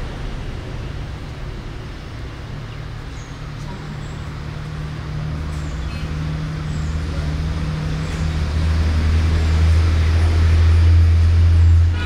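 Low, steady drone of a heavy road vehicle's engine, growing louder over the second half. A few faint, short, high chirps sound now and then above it.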